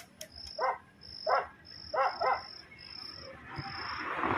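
An insect chirping in short, high-pitched pulses under a second apart. Four brief pitched calls sound in the first two and a half seconds.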